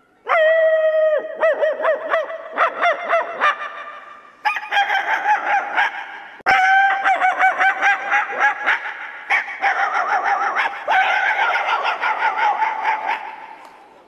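A man imitating animal and bird calls with his voice, a hand cupped over his mouth: a held note, then long runs of quick warbling, chattering calls, breaking off and starting again several times.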